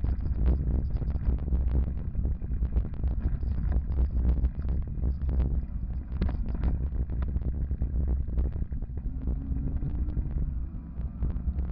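Wind buffeting the microphone of a camera riding on a moving electric fatbike, a steady low rumble with tyre noise from the asphalt. Frequent small clicks and knocks run through it.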